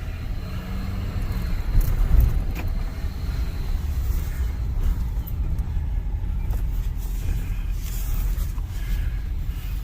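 Pickup truck being driven a short way down a street, its engine and road noise making a steady low rumble.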